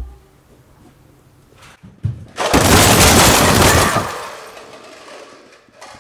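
A tall stack of red plastic cups knocked down, the cups crashing and clattering across a wooden floor in a dense burst of many small impacts that lasts about a second and a half and then trails off. A single thump comes just before.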